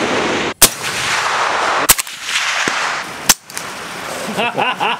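Rifle shots: three sharp cracks about a second and a half apart, each followed by a long rolling echo. Men's voices and laughter come in near the end.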